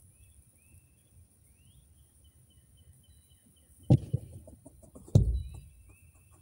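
Faint, small bird chirps and short whistles, broken by two sudden loud thumps, the first about four seconds in and the second a little over a second later.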